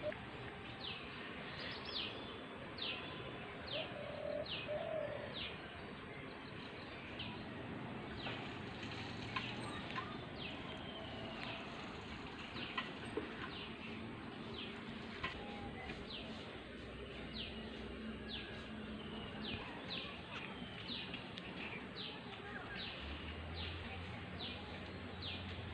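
Small birds calling: short, sharp, downward-sweeping chirps repeated about once a second over a faint open-air background.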